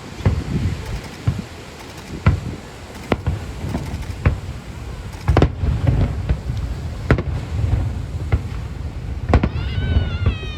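Fireworks bursting: a string of sharp, irregular bangs over a continuous low rumble of overlapping booms.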